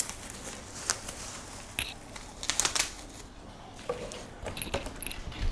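Rustling and a few scattered light clicks and taps as packing and loose parts are handled inside an opened cardboard box.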